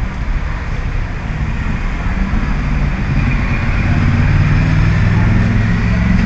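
Street traffic: a motor vehicle's engine running close by, a low hum that grows louder through the second half.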